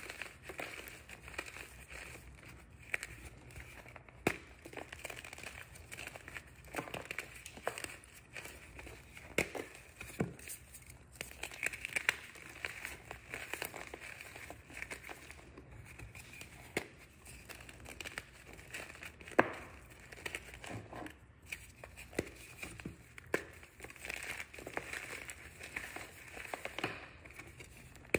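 Hands crushing a dried block of reformed gym chalk, breaking it into pieces and loose powder: irregular crunches and sharp cracks over a soft, steady crumbling of powder.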